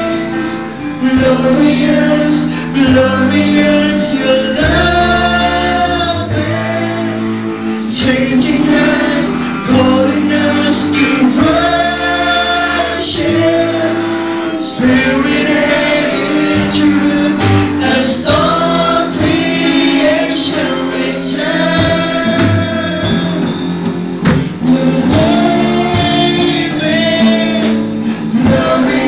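Live worship band: singers holding long sung notes over electric guitar, with regular beats throughout.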